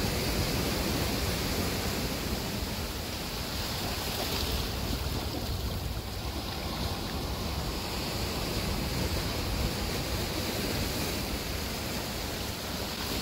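Steady wash of sea surf on a rocky shore, with wind rumbling on the microphone.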